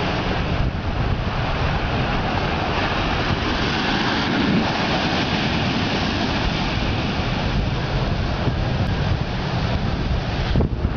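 Heavy surf breaking and washing up a sandy beach, a steady loud rush of water, with wind rumbling on the microphone.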